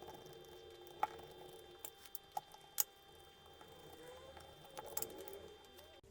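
Faint, scattered clicks and taps of small tools and plastic parts being handled while a WLToys 144001 RC car's front differential housing is taken apart, over a low steady hum.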